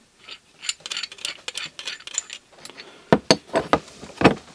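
Steel tools being handled: a quick run of light metallic clicks and clinks, then several louder knocks about three seconds in, as a vernier caliper and the bolt of a tie-rod-end puller are moved about and knocked together.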